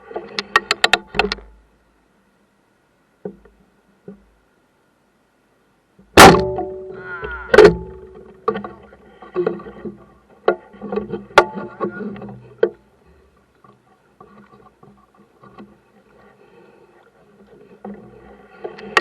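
A series of sharp knocks and clanks, the loudest about a third of the way in, each followed by a short ringing tone, with quieter rattling between them.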